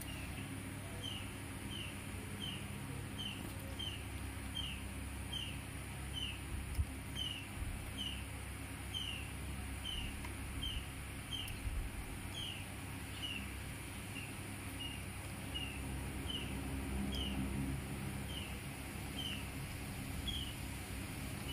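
A small animal's high, short chirp, falling slightly in pitch, repeated steadily about one and a half times a second, with a faint steady high hiss behind it.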